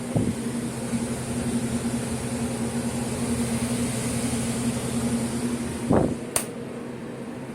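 Steady electric motor hum that switches on with a thump at the start, runs for about six seconds and stops with another thump, followed by a sharp click.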